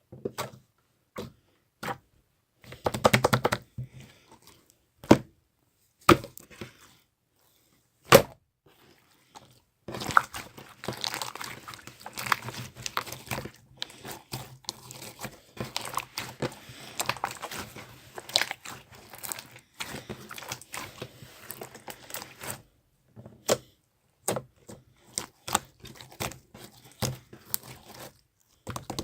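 Slime being played with by hand: sharp sticky pops and clicks, a few at a time at first, then a dense run of crackling from about ten seconds in that stops a little after twenty seconds, then scattered pops again.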